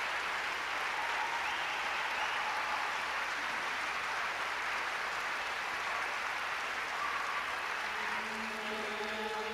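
Theatre audience applauding steadily. About eight seconds in, a steady pitched note comes in over the clapping.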